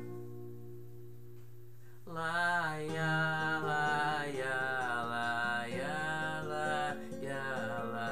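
An acoustic guitar chord rings on its own, then about two seconds in a man's voice comes in singing a long, drawn-out "lá" over the guitar, with held notes that bend in pitch.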